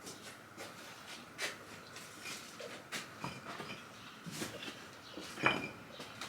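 Scattered light taps, clicks and rustling of objects being handled, with one sharper knock about five and a half seconds in.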